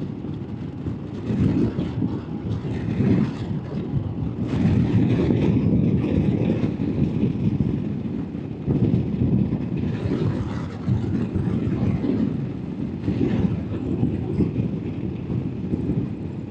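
Royal Enfield Himalayan's single-cylinder engine running under way, heard as a continuous low rumble mixed with wind noise that swells and dips irregularly.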